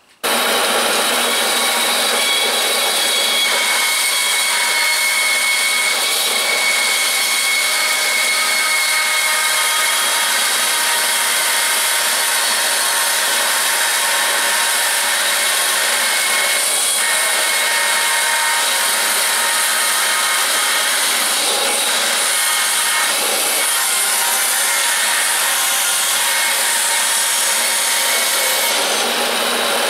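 Band saw with a half-inch blade running and cutting a curve through a pressure-treated pine board: a steady, loud saw noise with a strong high hiss.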